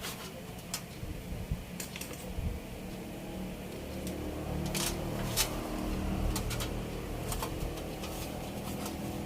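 Small clicks and handling noises as old LED backlight strips are worked loose from an opened LED TV's back panel, over a low steady hum that rises about three seconds in.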